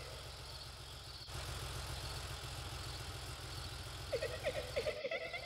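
Animated police car's engine running with a low, steady hum as it drives slowly. A short run of quick chirps from night insects comes in about four seconds in.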